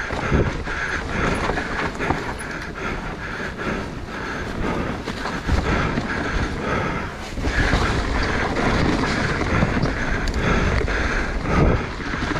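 Mountain bike being ridden down a wet, muddy trail, with the bike rattling over rough ground and tyre and ground noise throughout.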